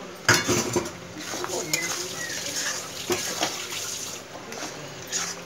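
A spatula stirring and scraping thick, wet rice around a kadai. There is a loud scrape just after the start, then repeated scraping strokes. The rice is cooking in oil with a little water still left in it.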